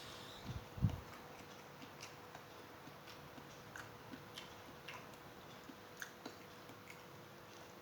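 A person chewing food, with soft scattered mouth clicks and smacks; a few low thumps come just under a second in.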